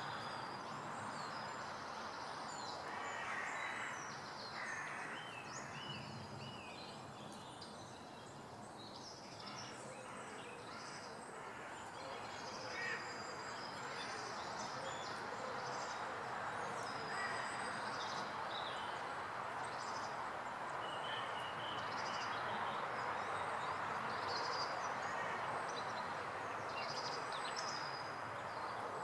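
Several small birds singing and calling: many short high chirps and trills over a steady rushing background noise.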